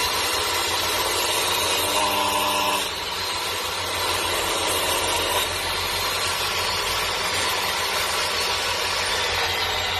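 Miter saw cutting through a thick wooden beam, its motor running steadily under load with a dense, continuous noise of blade on wood.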